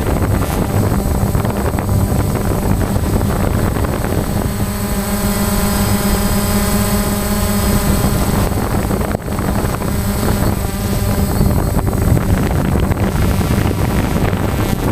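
Small camera drone's propellers and motors humming steadily in flight, with a thin high whine throughout. The motor tone changes for a few seconds around the middle.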